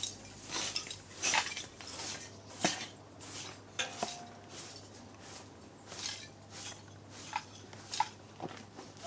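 Irregular clatter and clinks of hard objects being handled, about two a second, over a steady low hum.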